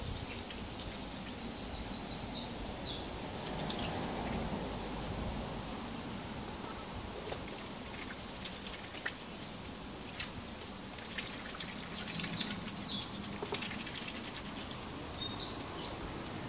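A small songbird sings the same short phrase twice, about ten seconds apart: quick runs of high repeated notes and brief whistles. Under it lies an even background hiss with scattered faint ticks.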